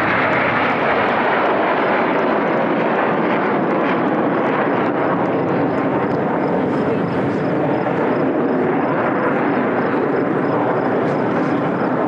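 Steady jet noise from the Red Arrows' BAE Hawk T1 jets, whose Adour turbofans run as the formation splits apart and climbs away.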